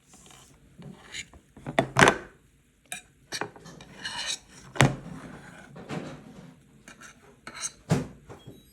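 Cutlery scraping and tapping on a plate while cake is cut and picked at, with irregular rasping scrapes and a few sharp clinks, the loudest about two, five and eight seconds in.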